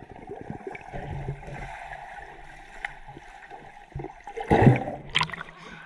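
Waterpark ambience: a steady wash of running and splashing water, with a loud short burst of noise about four and a half seconds in.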